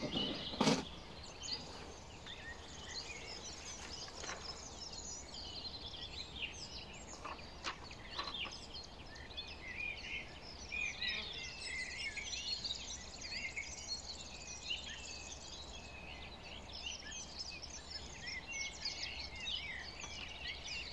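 Outdoor ambience of many small birds chirping and singing throughout, with a few brief knocks from handling, the loudest about a second in.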